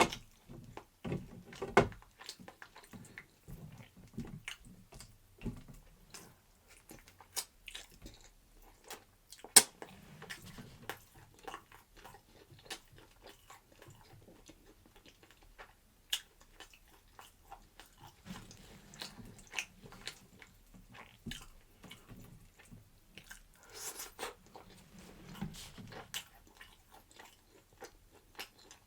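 A person chewing and biting food close to the microphone, with irregular wet clicks and smacks throughout; the sharpest click comes about nine and a half seconds in.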